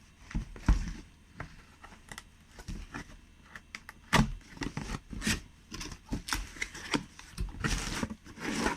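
Handling noise as the box of a soldering helping-hands stand is opened and its parts taken out: irregular small clicks, taps and knocks, with a brief rustle near the end.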